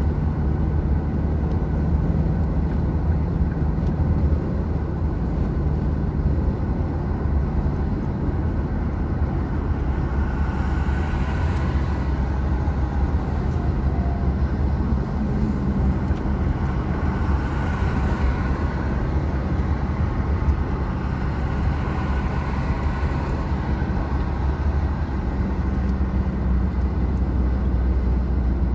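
Car driving at road speed, heard from inside the cabin: a steady low rumble of engine and tyre noise, swelling a few times as other traffic passes.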